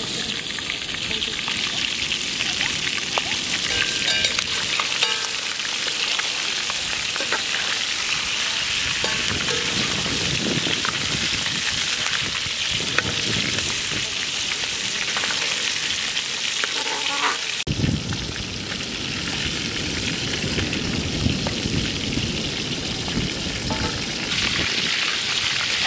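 Large pieces of masala-coated fish deep-frying in hot oil in a wide wok: a steady sizzle with bubbling.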